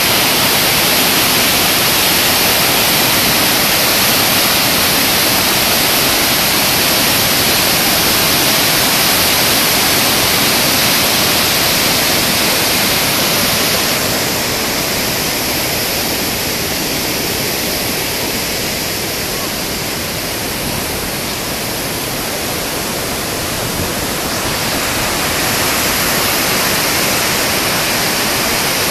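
Barron River in full flood churning through its rocky gorge: a steady, loud roar of rushing brown rapids, a little quieter for a stretch midway.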